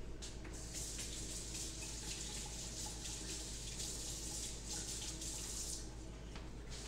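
Kitchen sink tap running as hands are washed under it; the water comes on about a second in and shuts off near the end.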